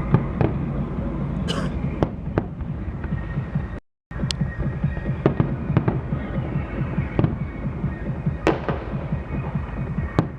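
Fireworks display: aerial shells bursting in a run of sharp bangs at irregular intervals over a continuous low rumble of explosions. The sound cuts out completely for a moment about four seconds in.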